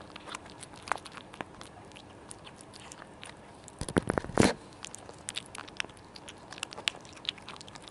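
Kittens crunching and chewing dry cat kibble close up, a quick run of small sharp crunches. About four seconds in comes a short, much louder patch of knocks and rustling.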